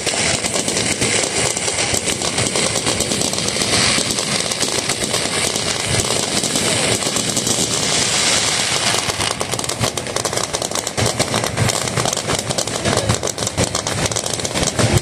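Fireworks spraying sparks: a steady rushing hiss that gives way, about halfway through, to dense rapid crackling and pops.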